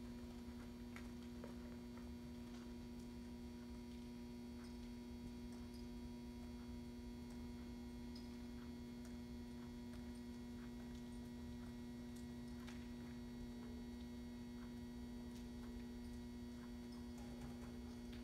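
Steady electrical mains hum, with faint, irregular ticks.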